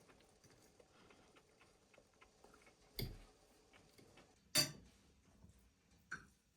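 A few scattered short knocks and clicks over a quiet background, the loudest about four and a half seconds in.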